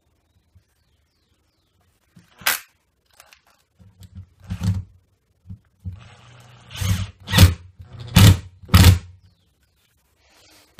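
Cordless screwdriver driving screws into a wooden drawer runner, running in several short loud bursts from about six seconds in over a low motor hum, after a single sharp knock about two and a half seconds in.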